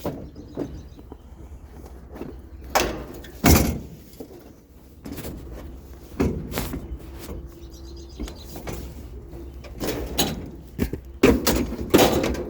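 Knocks, clunks and scrapes of a patio chair being handled and loaded, at irregular intervals, the loudest knock about three and a half seconds in.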